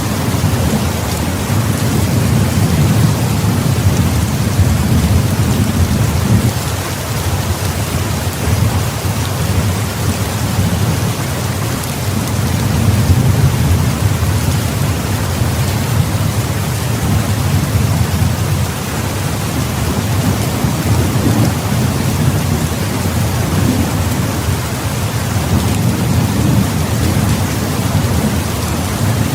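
Heavy rain falling steadily as an even hiss, under a low rumble of thunder that swells and fades several times.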